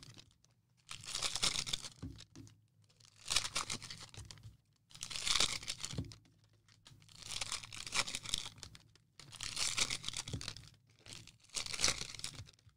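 Trading-card pack wrappers being torn open and crinkled by hand, in a run of about six separate rips one to two seconds apart.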